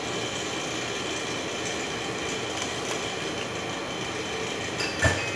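Steady whirring hum of kitchen machinery, like a fan running, with one sharp knock about five seconds in.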